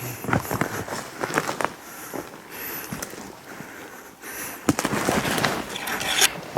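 Irregular crackling and snapping, like dry brush and twigs, with a louder stretch of rustling near the end.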